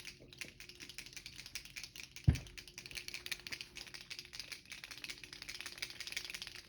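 Birchwood Casey sight touch-up paint pen being shaken, its mixing ball rattling in a rapid run of clicks. A single low thump about two seconds in.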